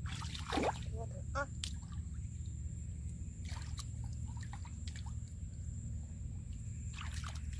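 Hands and bare feet sloshing in a shallow muddy puddle, with small splashes and drips here and there over a steady low hum.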